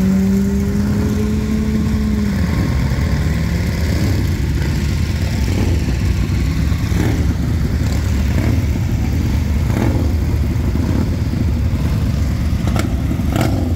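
Motorcycle engine held at steady revs for about two seconds, then falling away, over a continuous low rumble. A few sharp knocks come later, the brightest near the end.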